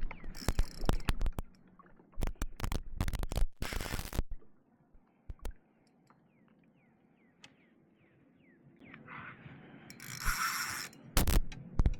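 Irregular sharp knocks and clicks of fishing tackle and kayak handling while a hooked fish is being fought, coming thickly in the first few seconds and again near the end. In between it goes almost silent with a few faint short chirps, then a rush of noise about nine seconds in.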